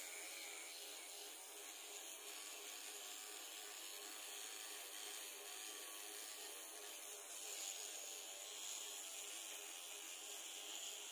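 Flawless battery-powered facial hair remover running faintly, a small motor's whirr whose pitch wavers as the rotating head is moved over the skin of the chin and upper lip.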